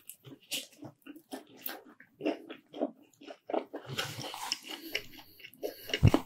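A person biting into and chewing a slice of pineapple cheese pizza close to the microphone, with irregular wet mouth and chewing sounds. There is a bite at the start and a low thump near the end.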